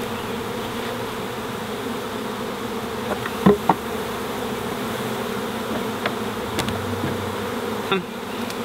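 Dense, steady buzzing of a mass of honey bees being shaken out of a package into a hive. Two sharp knocks come close together about three and a half seconds in.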